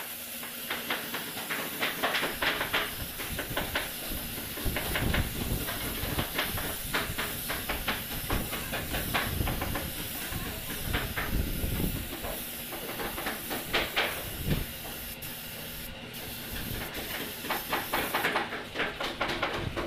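Compressed-air spray gun hissing as it sprays polish onto wood, the hiss swelling and dropping in short pulses as the trigger is worked, with a low rumble now and then.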